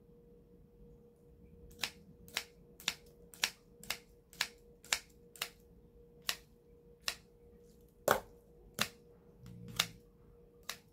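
Kitchen scissors snipping kimchi and noodles in an aluminium pot: a run of crisp clicks about twice a second starting about two seconds in, then slower, irregular snips toward the end. A faint steady hum runs underneath.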